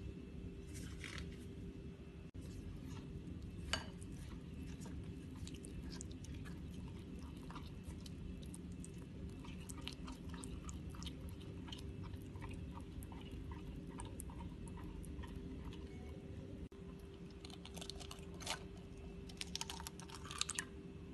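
Silicone spatula stirring granulated sugar into melted butter and chocolate in a pot, the sugar grains giving a gritty, crunchy scraping with scattered sharp crackles. A steady low hum sits underneath, and a denser run of clicks comes near the end.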